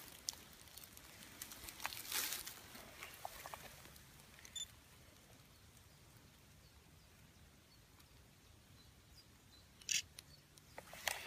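Faint handling of a small handheld camera held close: soft rustles and small clicks, a short high electronic beep about four and a half seconds in, and one sharper click near the end. Otherwise quiet.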